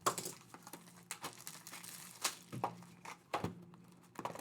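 Plastic wrapping crinkling and tearing, in short irregular rustles and clicks, as a trading-card box is unwrapped and opened.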